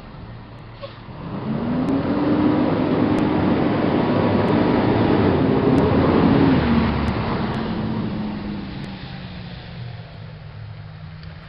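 Homemade stump grinder's engine running, revving up about a second in, holding at high speed for about five seconds, then throttling back down to a lower, quieter run.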